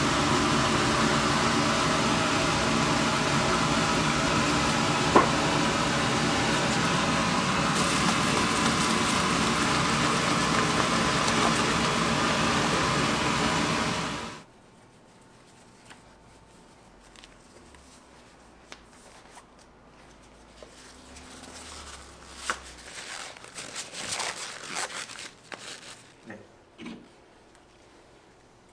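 A pot of sugar syrup boiling hard over a gas burner, a loud steady roar, for about the first half. It cuts off suddenly to a quiet room with faint rustling and light knocks, a little busier near the end.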